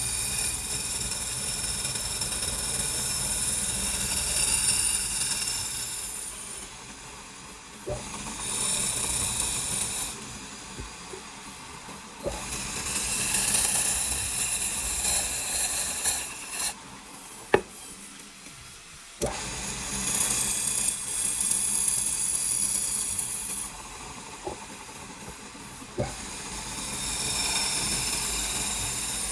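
A power tool working wood in spells of a few seconds, each with a hissing, whirring sound, separated by quieter pauses with a few sharp clicks.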